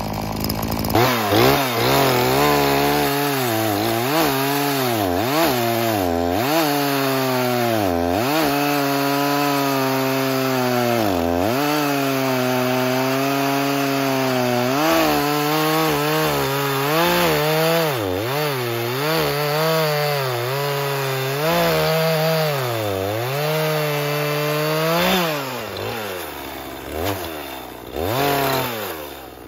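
Echo CS-4510 two-stroke chainsaw cutting through a log at full throttle, its engine pitch dipping again and again as the chain bogs in the wood and then recovering. Near the end the sound drops away briefly as the cut goes through.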